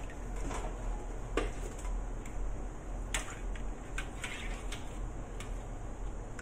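Metal skimmer clinking and scraping against a stainless steel pot while boiled dried shark's fin is lifted and turned in the water: a few sharp clinks, over a steady low hum.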